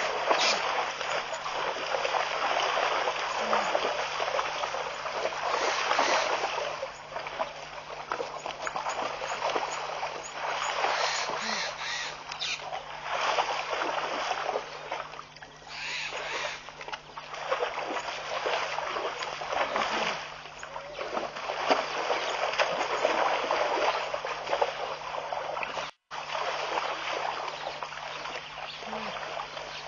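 Waterhole ambience through a webcam microphone: a hissing noise that swells and fades every few seconds over a steady low hum. It cuts out for a moment near the end.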